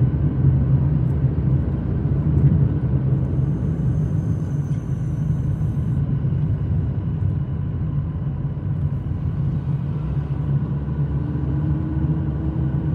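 Car driving slowly along a road, heard from inside: a steady low rumble of engine and tyre noise.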